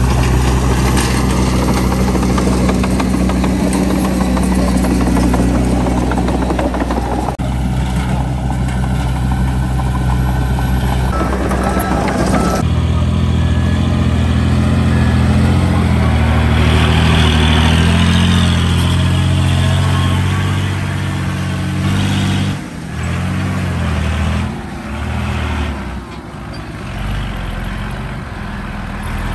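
Diesel engines of a crawler bulldozer and a dump truck running under load: a loud, steady low drone that shifts abruptly twice, then surges and dips over the last few seconds.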